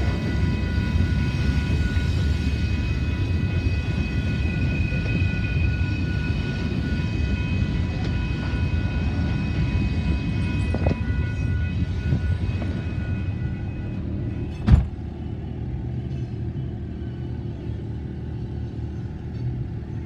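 Freight train of covered hopper cars rolling past: a steady low rumble with several high, steady ringing tones over it. About fifteen seconds in there is one sharp thump, a car door shutting, after which the train sounds muffled.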